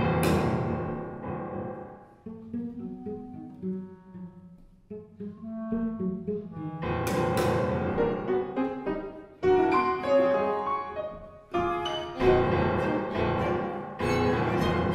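Contemporary chamber music from a Pierrot ensemble of flute, clarinet, violin, cello and piano. A loud opening thins to quiet held notes, then the music builds again with sudden sharp accented attacks about seven, nine and twelve seconds in.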